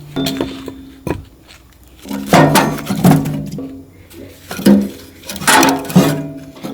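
Dishes and kitchenware clattering and clinking in a series of sharp knocks about a second apart, with background music.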